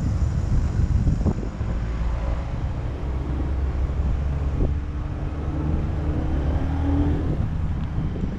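Motorcycle engine running while riding along a street, a steady low rumble with road noise.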